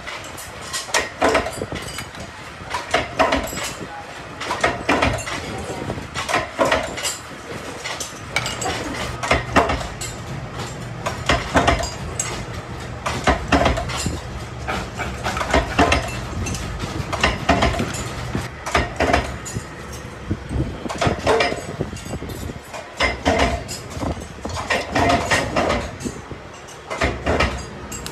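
Stainless steel being worked by hand: repeated irregular metallic taps and clinks, one or two a second, with a steady low machine hum running under most of it.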